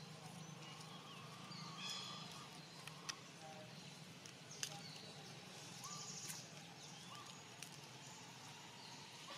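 Faint outdoor ambience: short, high chirping calls come and go over a low steady hum, with two sharp clicks, one about three seconds in and one between four and five seconds.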